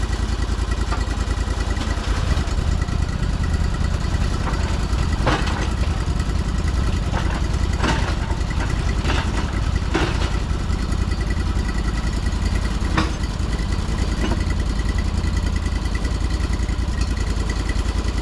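An engine running steadily with a fast, even firing beat, with a handful of knocks and clanks over it, the sharpest about thirteen seconds in.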